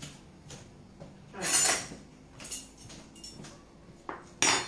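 Cutlery and dishes clinking and clattering: a few light clinks, with two louder clatters, one about a second and a half in and another near the end.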